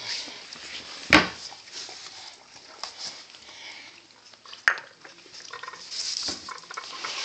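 Basenji dogs eating and licking at food bowls on a tile floor, with many small clicks, a loud knock about a second in and a sharp click a little past the middle.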